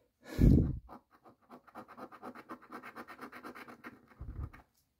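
A coin scratching the latex coating off a paper lottery scratch-off ticket in quick, even back-and-forth strokes, about six a second, stopping shortly before the end. A short loud bump comes about half a second in.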